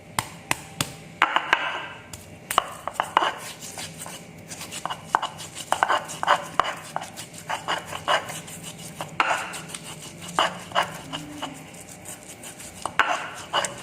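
Mortar and pestle (Indonesian cobek and ulekan) pounding and grinding fresh turmeric: sharp knocks at irregular intervals, with a few longer scraping grinding strokes.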